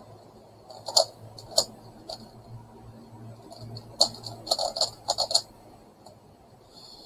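Plastic megaminx puzzle being turned by hand: its faces clicking and clacking as they turn, a few single clicks in the first two seconds, then a quick flurry of turns from about four seconds in.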